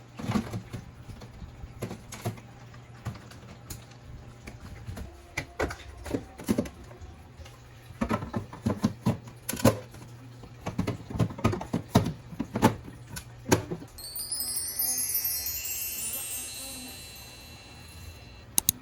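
Clicks, knocks and clatter of containers and items being handled and set down, over a low steady hum. Near the end the clatter gives way to a shimmering run of high chime tones lasting a few seconds, like a sparkle sound effect.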